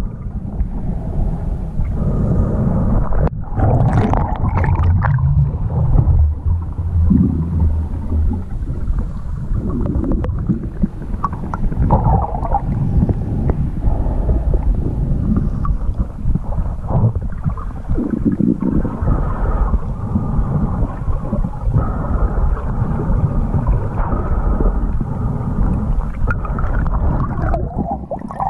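Muffled, continuous low rumble of water moving against an underwater camera's housing as a snorkeller swims.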